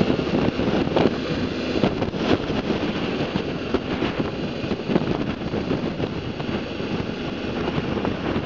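Wind rushing and buffeting over the microphone of a BMW G650 GS motorcycle on the move, with the bike's single-cylinder engine and tyre noise underneath.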